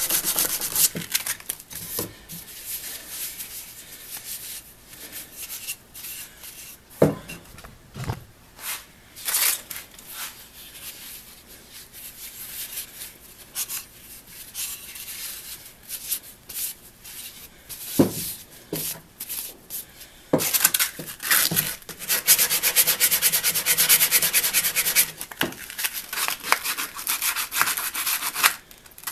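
Hand-sanding an old wooden saw handle with sandpaper: quick scratchy back-and-forth rubbing. It drops off a second in to quieter handling with a few knocks on the bench, then starts up again steadily for the last several seconds.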